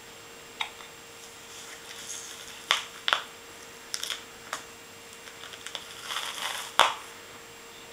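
Short, sharp rustles and crinkles, a dozen or so in irregular bursts, from kittens and a baby handling stuffed toys on a cloth blanket; the loudest comes near the end. A faint steady hum lies beneath.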